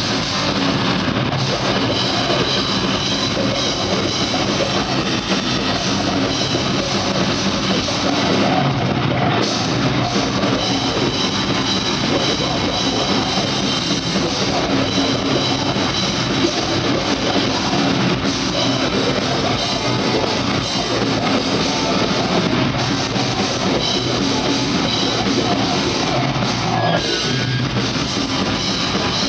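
Grindcore band playing live: distorted electric guitar, drum kit and shouted vocals, steadily loud with no let-up.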